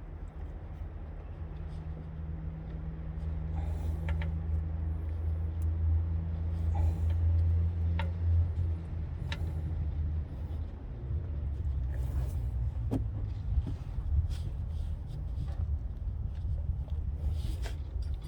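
Car engine running at idle, a steady low hum that grows a little louder in the middle, with scattered light clicks and knocks.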